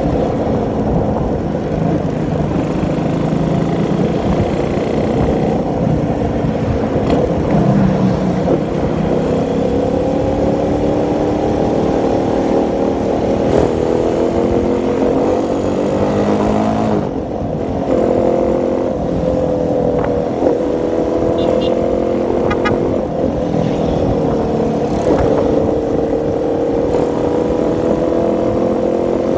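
Motorcycle engine running under way, its pitch climbing gradually, easing off briefly about seventeen seconds in and then picking up again, with wind noise underneath.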